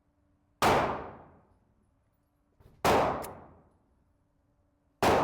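Three pistol shots about two seconds apart, each a sharp crack followed by a short ringing decay.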